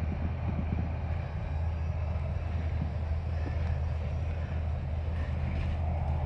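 A steady low rumble with no change in level.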